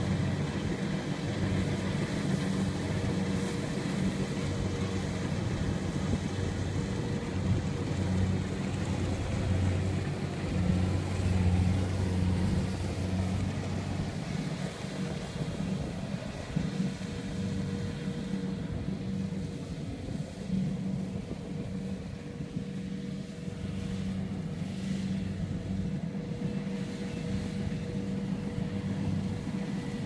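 Compact rice combine harvester's engine and threshing machinery running steadily as it cuts rice: a low drone with a constant hum over it. It grows a little quieter about halfway through as the machine moves off.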